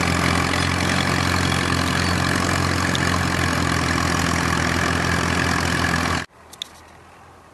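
Vintage tractor engine running steadily under load as it pulls a mounted plow through sod. The sound cuts off suddenly about six seconds in, leaving quiet background with a faint click.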